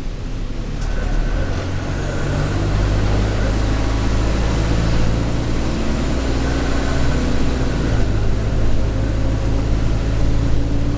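Alexander Dennis Enviro200 bus engine pulling, heard on board, with a steady low engine drone. A high-pitched turbo whine comes in about two seconds in, climbs as the bus accelerates, eases off slightly later on, and fades near the end.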